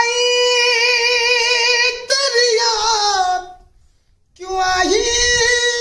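A man singing unaccompanied in a high voice: a long held note with vibrato that trails off about three and a half seconds in, then after a short pause a new sung phrase.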